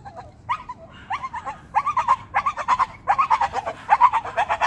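A dog whining and yipping in short, high, rising-and-falling cries, sparse at first and coming thick and fast from about two seconds in.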